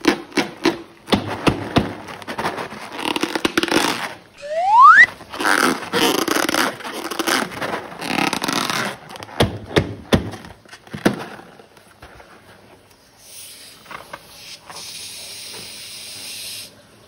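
Slime and balloons being squeezed and handled, with crackling, squelching clicks and a short rising rubbery squeak about four and a half seconds in. A steady hiss runs through the last few seconds.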